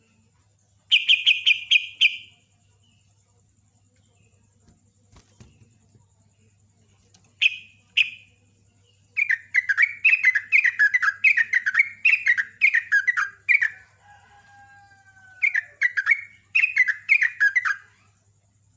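Yellow-vented bulbul singing its fast rolling song in bursts of rapid repeated notes, about six a second: a short run near the start, a brief pair of notes, then a long run of several seconds and a final run near the end. A faint steady electrical hum sits underneath.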